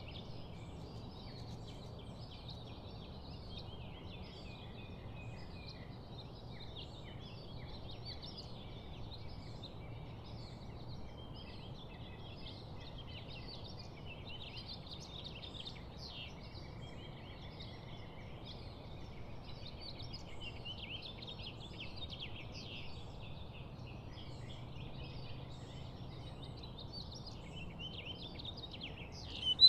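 Many small birds chirping and twittering together in a dense, continuous chorus, over a steady low background hum.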